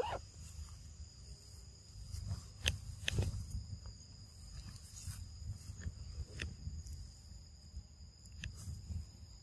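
Insects droning steadily in two high tones, with scattered crackles and rustles of leaves and twigs in the undergrowth, a cluster of them about three seconds in.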